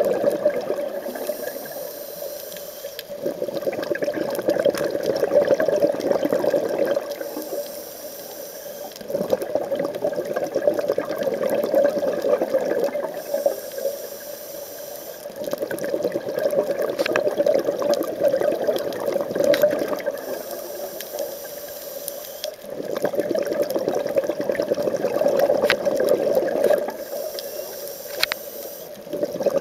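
Scuba diver's regulator breathing underwater in a slow, even cycle about every six seconds: a hissing inhale of about two seconds, then a longer rush of bubbling exhaled air.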